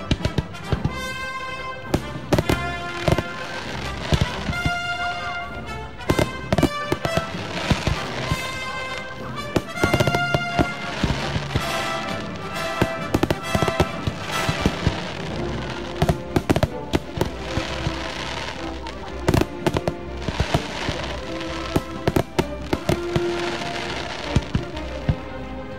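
Fireworks finale: many aerial shells bursting in quick, irregular bangs, several close together at times, over music with sustained tones.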